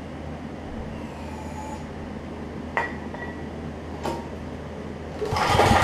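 Over a steady hum, two light clicks, then near the end the recoil starter of a Briggs & Stratton Vanguard overhead-valve engine is pulled and the engine cranks over with a loud, rapid chugging. The engine has just been freed from being seized and is being cranked with its carburetor off.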